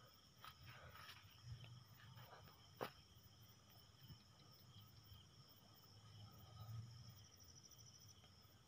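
Near silence: room tone with faint steady high-pitched tones and low hum, and a single light click about three seconds in.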